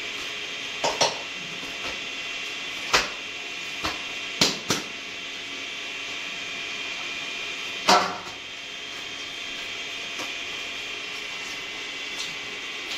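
Stiff wheat-flour dough being kneaded by hand in a steel plate: scattered sharp knocks and taps of the plate and hands, the loudest about eight seconds in, over a steady hiss.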